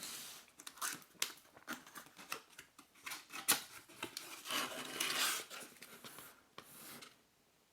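A small white cardboard box being opened by hand: scattered clicks and scrapes of the card flaps, with stretches of rustling about four and a half seconds in and again near the end.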